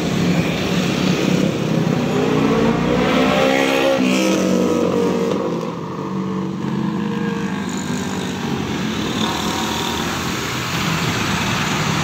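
Tour coach's diesel engine running as the bus pulls away close by. Its note rises in pitch over a couple of seconds, drops back about four seconds in, then runs on steadily.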